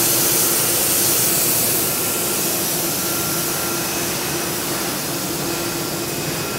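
Plastic wicket bag making machine running: a loud, even hiss, strongest in the treble, over a faint steady hum.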